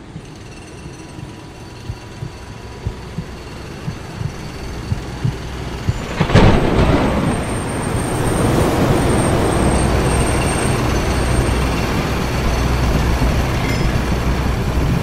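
Short thumps about two a second, growing louder over a rising rumble, then a sudden loud crash about six seconds in, followed by a steady low rumbling noise.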